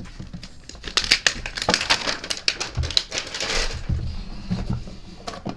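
Packaging crinkling and crackling in the hands as a Pokémon card Collector's Chest is unwrapped and opened, with a few soft bumps from handling.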